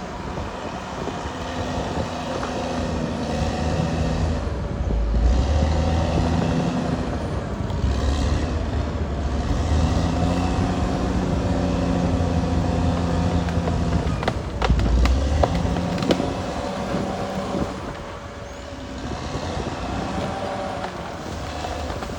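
Caterpillar D6R XL bulldozer's diesel engine working hard, its pitch rising and falling in repeated surges as the machine pushes. A few sharp knocks come about two thirds of the way in.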